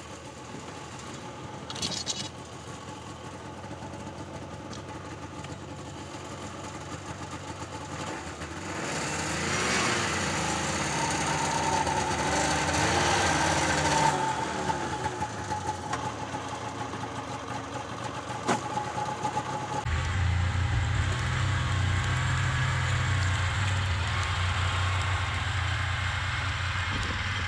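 Snowmobile engine running, revving up about a third of the way in as it takes the load of towing a small wooden camper on skids. After a cut, a deeper, steady engine sound continues.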